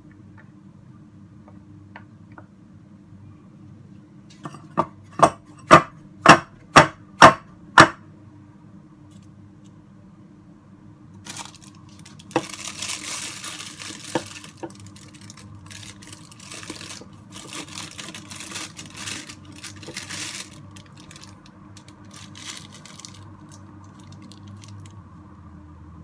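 Kitchenware knocked hard about seven times in a row, about two knocks a second, while batter is portioned into a muffin tin. Later comes a stretch of plastic crinkling and rustling from a piping bag being handled.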